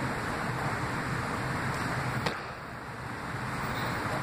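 Steady rushing outdoor noise, with one sharp tap about two seconds in: shoes landing on concrete after a jump down off a ledge.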